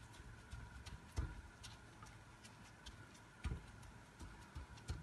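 Faint crackling and small ticks as a gloved hand presses shredded kunafa pastry dough flat into a frying pan, with a soft thump about a second in and another a little past halfway.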